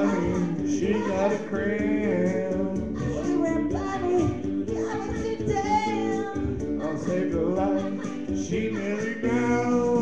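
Karaoke duet: a man and a woman singing together into microphones over a backing track.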